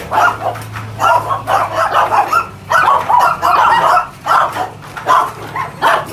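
Dog barking repeatedly, about two barks a second, over a steady low hum.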